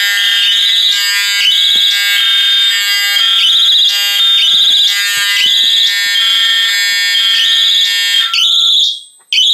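Fire alarm sounders going off after a manual pull station is pulled: a loud, repeating high warbling tone about once a second over steady lower tones. It drops out briefly near the end.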